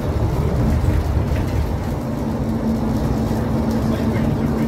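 Scania L94UA articulated bus's diesel engine running, heard from on board as a steady low rumble, with a steady hum that comes in about two seconds in.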